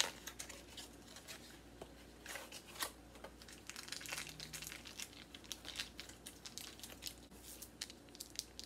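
Faint crinkling and rustling of a cream cheese block's wrapper as it is peeled open, in short scattered crackles.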